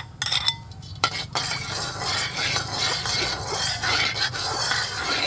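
Hot oil sizzling in a steel wok while a metal spatula stirs and scrapes around the pan. A couple of light metal clinks at the start, and the sizzling sets in about a second in.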